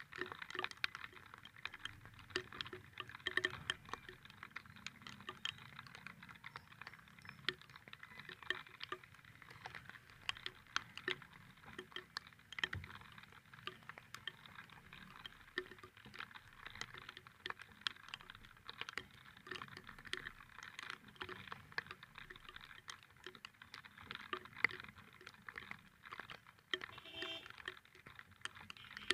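Raindrops pattering close to the microphone: a dense run of small, irregular ticks throughout.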